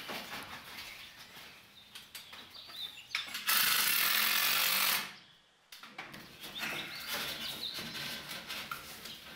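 Ratchet strap being worked, giving irregular ratcheting clicks as it is tightened to clamp the bracing against freshly glued panels. About three and a half seconds in, a loud steady hiss cuts in for about a second and a half, then fades away.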